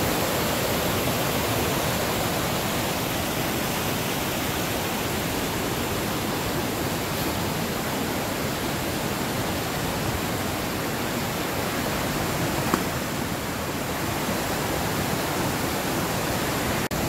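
A creek in flood after heavy rain, rushing down a granite cascade: a steady, even sound of rushing water.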